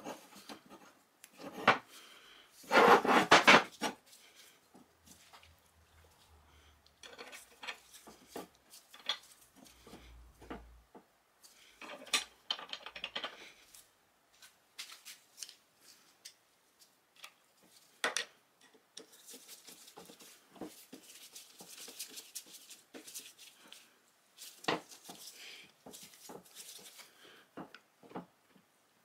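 Metal gearbox parts of a Ransomes MG2 crawler clinking and clattering on a workbench as they are handled and fitted together. There is a louder clatter about three seconds in, and a few seconds of fine rapid ticking about two-thirds of the way through.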